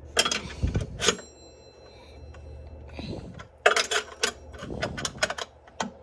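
Irregular clicks, taps and knocks of objects being handled and moved around, in clusters, with a brief faint metallic ring after a knock about a second in.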